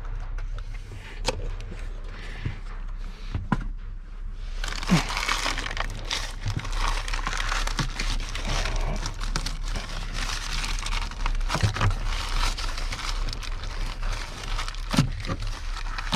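Material being pulled and torn out of a car's interior: a few light knocks, then, from about four seconds in, a steady crackling, crumpling rustle.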